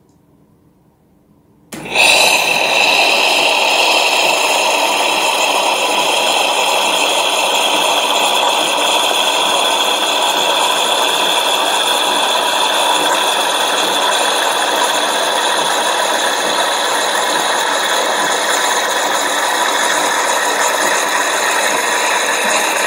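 Oster Prima Latte II espresso machine's automatic milk frother running at its maximum foam setting, steaming and frothing milk into a glass. It starts abruptly about two seconds in, then goes on as a steady loud hiss with a high whine.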